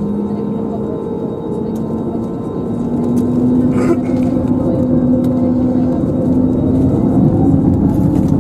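Airbus A320neo's CFM LEAP-1A engines heard from inside the cabin: a steady hum with held tones that gets louder about three seconds in, and a tone that rises in pitch near the end as the engines spool up.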